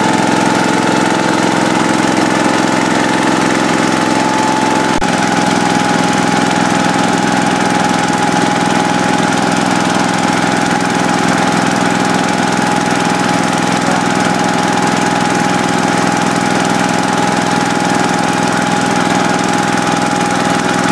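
Gas-engine air compressor, a Briggs & Stratton 531 cc engine driving the compressor pump, running steadily. About five seconds in there is a click and the running note changes.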